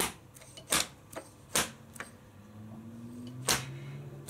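Sharp, hollow knocks, about one a second with a weaker one among them, of a length of 40 mm PVC pipe rammed down a motorcycle fork tube onto a new fork seal, driving the seal into the fork leg.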